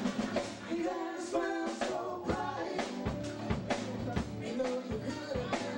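Live band playing: a woman singing into a microphone over electric guitars and a drum kit keeping a steady beat.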